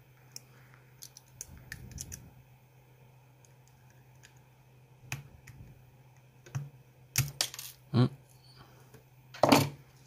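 Light metallic clicks and clinks from a pin-tumbler lock being taken apart, its small pins and springs tapping and rattling. A cluster of louder clinks comes from about seven seconds in.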